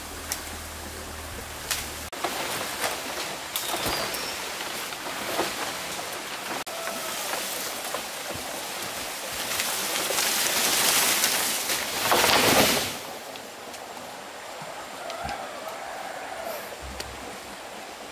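Water splashing and running, growing louder for about three seconds in the middle before dropping back, with scattered small knocks.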